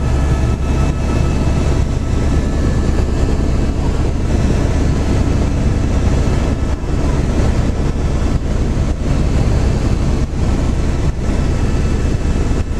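Helicopter running: a steady, loud engine and rotor noise with a strong low hum.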